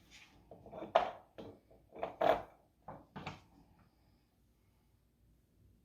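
A few short knocks and handling noises against wood, spread over about three seconds, then a near-quiet stretch of about two seconds.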